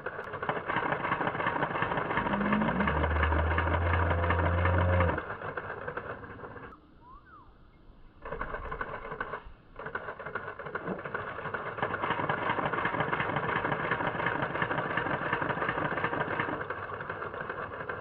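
Rapid, continuous mechanical clatter that breaks off for a moment twice, after about seven and ten seconds.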